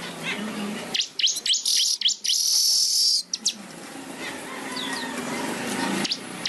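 Manyar weaver singing: a quick run of sharp chirps about a second in, ending in a harsh buzzing note about a second long, then a few faint chirps.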